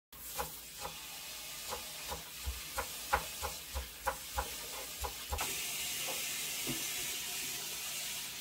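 Kitchen knife chopping green onions on a wooden cutting board: short knocks, about two to three a second. About five seconds in the chopping stops and a steady hiss takes over.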